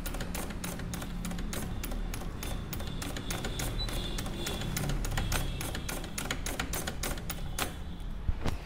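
Rapid, even mechanical clicking, about five clicks a second, over a low steady hum.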